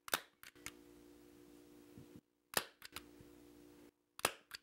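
Faint scattered clicks and taps from hands working felt around an antler mounting form, in three small clusters, over a low steady hum.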